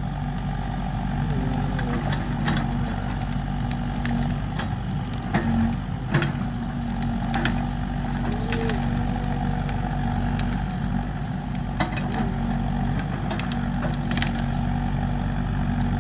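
Excavator's diesel engine running steadily, with scattered sharp pops and cracks from the burning pine tree.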